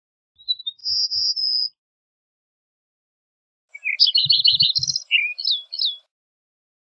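A songbird singing two phrases: a short, high trill about half a second in, then a longer, varied warbling phrase of quick rising and falling notes from about four seconds in.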